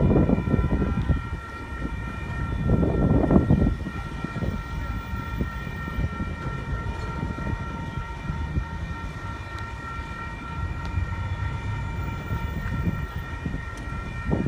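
Union Pacific double-stack container freight train rolling past: a steady rumble of wheels on rail, with louder bursts of clatter right at the start and again about three seconds in, over a steady high-pitched whine.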